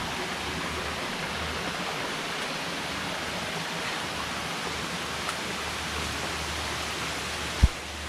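Water of a small rocky stream running over little cascades, a steady rushing hiss. A single short low thump sounds just before the end.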